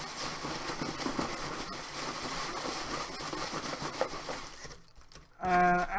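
Dry leaves and a plastic bag stirred by hand inside a box, a steady rustling and crackling, used to imitate leaves and rubbish blowing about in a storm; it stops near the end.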